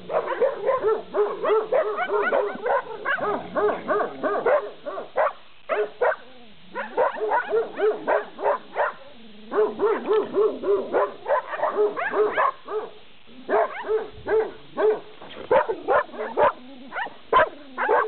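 Dogs barking rapidly and continuously, about four barks a second, with a couple of short breaks.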